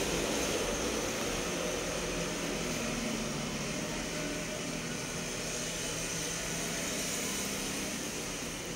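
Steady background hiss with a faint low hum, like room or microphone noise; no distinct events.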